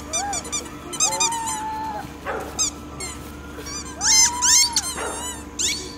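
Pit bull whining in drawn-out cries that rise and fall, mixed with runs of quick high squeaks.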